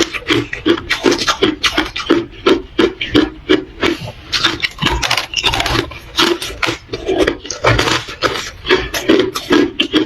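Hard ice being chewed close to the microphone: a quick run of crisp crunches, about two to three a second.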